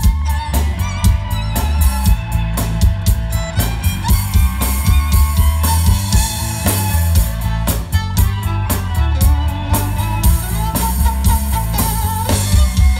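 Live rock band playing an instrumental passage: electric guitar, bass guitar and drum kit, with two violins carrying the melody over a steady drum beat.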